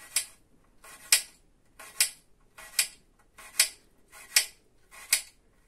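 Small knife slicing thin pieces off a raw apple held in the hand: a crisp cut about every 0.8 seconds, seven in all.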